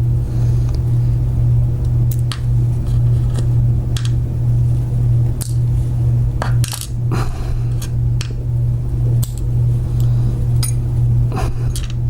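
Driver pins being worked out of an old Kwikset lock cylinder, giving small metallic clicks and clinks at irregular intervals, over a steady low hum.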